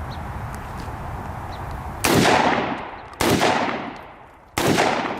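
Springfield Saint Victor AR pistol with a 10.5-inch barrel firing 5.56 rounds: three single shots, each about 1.2 to 1.4 seconds apart, beginning about two seconds in. Each report rings out in a long fading echo.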